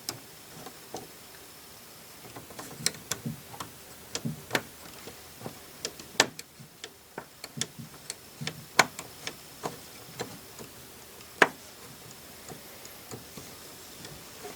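Irregular sharp clicks and light wooden knocks, a couple a second with a few louder ones, from the keys of an antique barrel organ's keyframe being worked by hand; some of the keys stick and won't return to their rest position.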